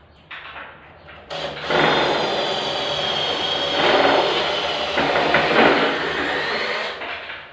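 Cordless drill running under load, drilling into the wall: it starts about a second in, runs steadily with a high motor whine, swells a little twice, and stops shortly before the end.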